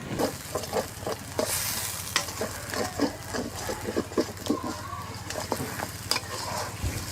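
Spiced minced mutton (keema) being stir-fried in oil in a kadai: a spatula scrapes and knocks against the pan in quick, irregular strokes over a steady sizzle. This is the bhuna stage, where the keema is fried until the oil separates.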